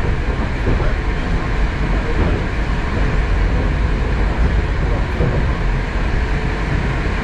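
Moskva-2018 metro train running at speed, heard from inside the passenger car: a steady rumble of wheels on the rails.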